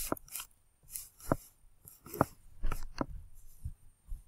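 Several separate light clicks and taps of objects being handled, irregularly spaced with short quiet gaps between them.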